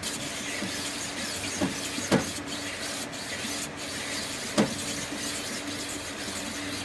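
Cordless drill at part throttle spinning an adjustable stone hone that is stroked up and down inside a Yamaha RD350 two-stroke cylinder bore. The stones grind with a steady hiss, with a few short knocks along the way. This is a first honing pass with 180-grit stones, taking the bore out to piston clearance and leaving a crosshatch.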